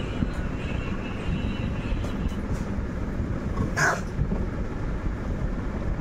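Steady low rumbling noise, with a brief hissing burst about four seconds in.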